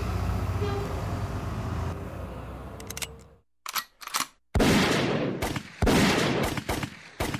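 Street café ambience with a steady traffic hum, then after a short silence, five loud bursts of machine-gun-style gunfire: two short ones, two of about a second each, and a last brief one. The sound cuts off abruptly near the end.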